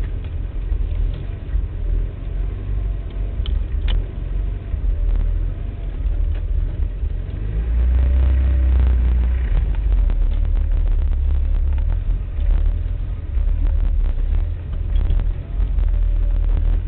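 A car on the move: a steady low engine and road rumble that swells for a couple of seconds near the middle.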